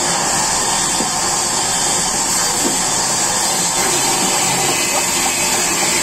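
Sawmill band saw running steadily while its blade rips through a wooden plank, giving a loud, even whine and hiss.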